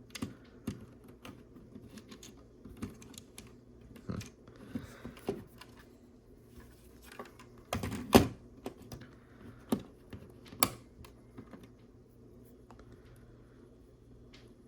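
Small plastic LEGO pieces clicking and tapping as they are handled and fitted together: a scatter of light, irregular clicks, with two louder clicks about eight and eleven seconds in.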